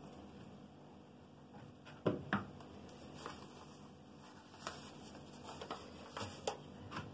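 Paper flour bag rustling and crinkling in the hand as flour is poured from it into a metal sieve, with scattered soft knocks and taps. Two louder knocks come about two seconds in.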